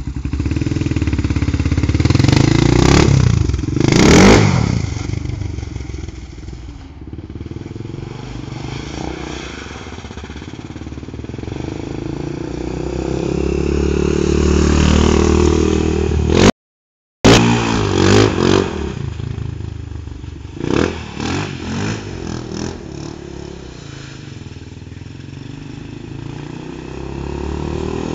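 Honda TRX 400 quad's single-cylinder four-stroke engine revving hard as it rides off and passes, fading with distance and swelling again, with a run of short throttle blips past the middle. The sound drops out completely for about half a second a little past halfway.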